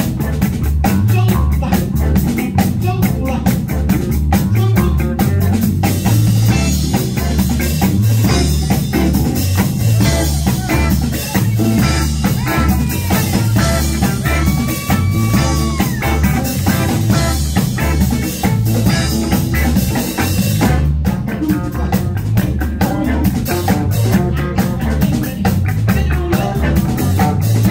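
Live band playing an upbeat groove on drum kit, electric bass and guitar, with a steady driving beat.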